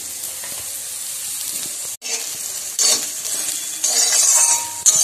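Soya chunks sizzling in hot mustard oil in an iron kadai. From about three seconds in, a metal spatula stirs them, scraping and clattering against the pan over a louder sizzle.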